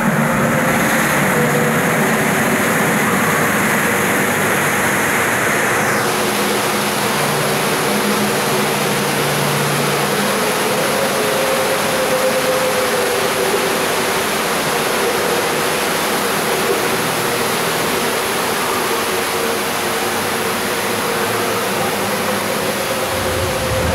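Steady, loud rushing hiss of water spray and mist over a faint low machine hum. About six seconds in the hiss suddenly gets brighter and fuller, and it stays that way.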